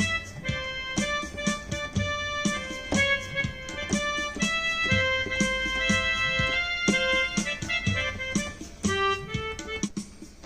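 Yamaha PSR-I400 portable keyboard being played: a melody of piano-like notes over a rhythm accompaniment with a steady beat. It thins out and drops in level near the end.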